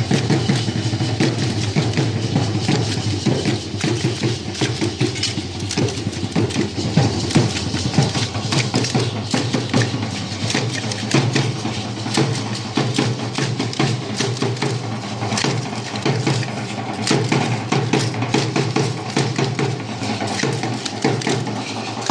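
Percussion music for a danza guayulera: a drum beating a steady, fast dance rhythm with many sharp clicking strokes over it.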